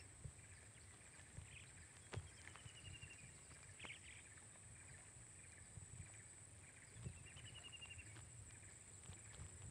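Faint birdsong: a trill of quick repeated high notes a couple of seconds in, a short chirp, then another trill about seven seconds in.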